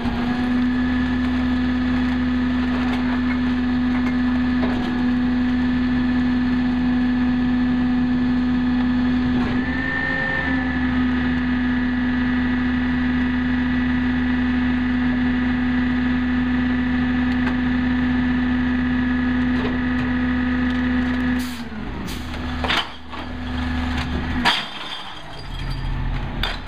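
Peterbilt 320 garbage truck running at raised revs to drive the G&H split-body rear loader's hydraulic packer, a steady whine with a brief rise in pitch about ten seconds in. About twenty seconds in the whine drops away and a few knocks and bangs follow.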